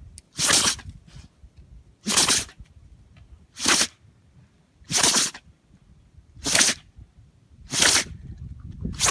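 A Shikoku dog sneezing again and again, one short sharp sneeze about every second and a half, six in a row with a seventh starting at the very end. The owner guesses something blew into its nose in the strong wind.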